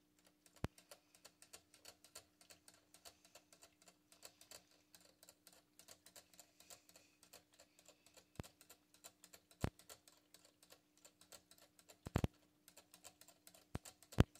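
Cat licking the metal sipper tube of a gerbil water bottle: a quick, fairly even run of light clicks as its tongue works the spout, with a few louder, sharper clicks now and then.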